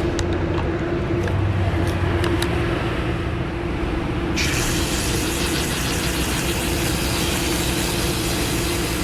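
Steady mechanical hum with a held low tone; about four seconds in, a hiss of spraying water starts suddenly and keeps going: water rinsing coil cleaner off an AC condenser coil.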